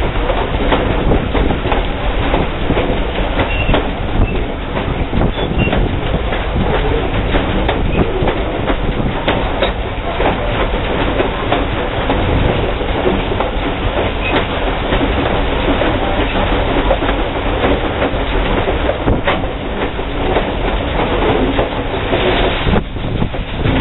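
Steam locomotive running along the track, heard from the engine itself: a loud, steady rumble of wheels and running gear with clickety-clack over the rail joints.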